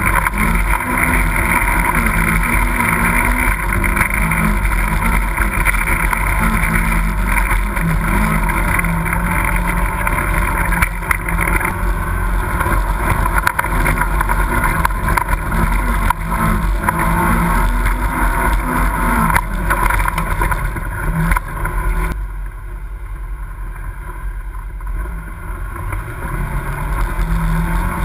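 Polaris RZR XP side-by-side's twin-cylinder engine running under load as it crawls a rough trail, its pitch rising and falling with the throttle. About three-quarters of the way through, the sound abruptly turns quieter and duller for a few seconds before the engine comes back up.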